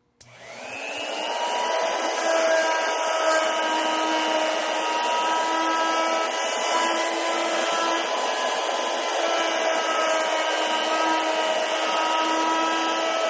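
Pantograph engraving machine spinning up over the first second or so, then running steadily with a whine over a hiss as its cutter engraves the design into a metal buckle.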